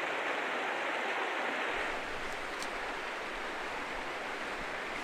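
Small mountain stream running over rocks, a steady rush of water. About two seconds in the sound shifts, a little quieter with more low rumble.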